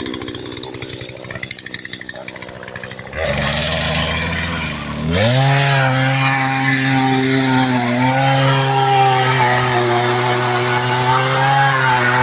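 Chainsaw fitted with a new bar and chain, idling with a rapid even pulse, then throttled up about three seconds in. It rises to a steady high-speed run, dipping briefly in pitch about eight seconds in.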